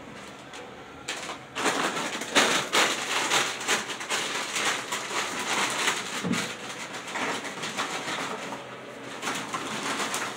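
Crinkly plastic snack bag rustling and crackling as it is shaken and handled. It starts about a second in and goes on in dense, irregular crinkles until near the end.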